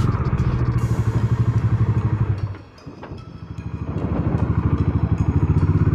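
Bajaj Dominar 400 motorcycle's single-cylinder engine running at low speed with a steady pulsing beat. About two and a half seconds in the sound drops away briefly, then builds back up.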